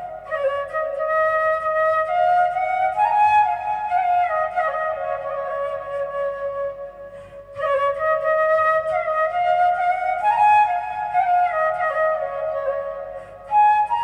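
Background music: a flute playing a melody in short phrases, with brief pauses about seven seconds in and near the end.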